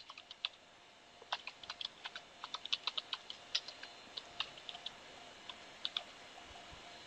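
Faint typing on a computer keyboard: an irregular run of keystrokes that stops about six seconds in, over a faint steady hum.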